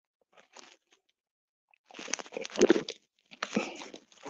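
Plastic drink bottle crinkling and crackling in the hand as a man drinks from it, in a few short spells about two seconds in and again near the end.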